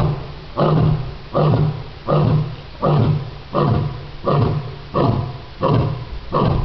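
Male lion giving a long series of short, evenly spaced grunts, about one every 0.7 seconds, each starting loud and fading. This is the grunting run that closes a lion's roaring bout, heard as a "barking" call.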